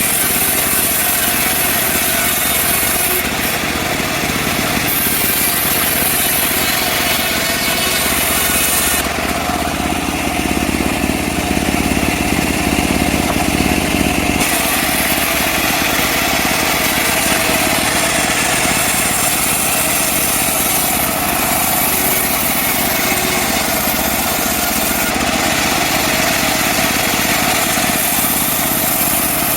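Engine of a mobile band sawmill running steadily while the saw cuts mahogany logs. For several seconds in the middle the sound turns lower and duller before returning to its earlier tone.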